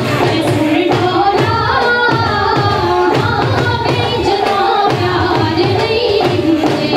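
Punjabi folk music for a luddi dance: singing over a steady drum beat.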